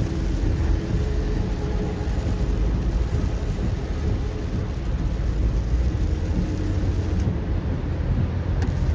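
Heavy rain on a moving car, with tyres running on the wet road: a steady, deep rushing noise.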